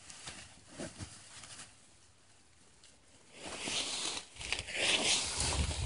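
Dry weeds and brush rustling and crackling as a bird dog pushes through thick cover. The rustling starts faint, stops for a moment, then grows louder from about three seconds in.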